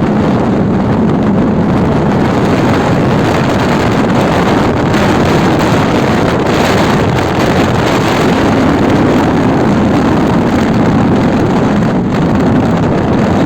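Steady, loud wind rush on the microphone of a moving motorcycle, with the engine running underneath.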